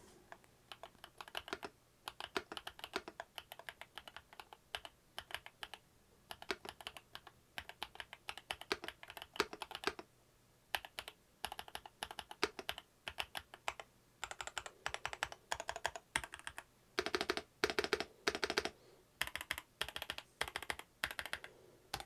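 Typing on the Darmoshark TOP75 mechanical keyboard with its TTC Shark switches and PBT keycaps: fast runs of key clicks in bursts with short pauses, some heavier strokes mixed in. A dampened, not too loud, sort of clunky sound.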